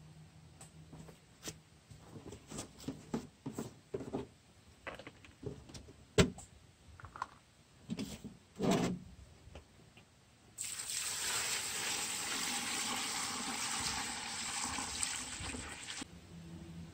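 Scattered small clicks and knocks, one of them sharp and loud about six seconds in. Then, about ten seconds in, water is poured from a plastic jug onto dried medicinal herbs and jujubes in a large pot: a steady splashing pour for about five seconds that stops sharply.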